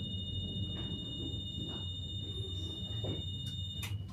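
Tram door warning signal: a steady high two-note beep held until it cuts off with a click near the end, over the low hum of the standing Vario LF tram.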